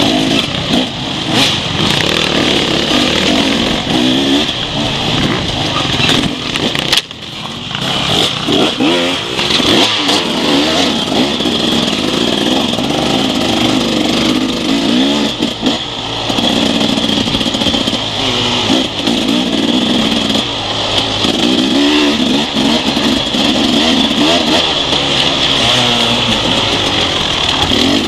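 Enduro dirt bike engine heard from on the bike, revving up and down over and over as it is ridden hard along a trail. The engine note drops away briefly about seven seconds in, then picks up again.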